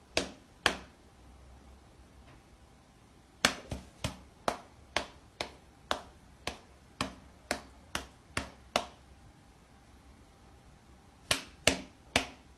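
A run of short, sharp taps or knocks: two near the start, about a dozen at roughly two a second through the middle, then three more near the end.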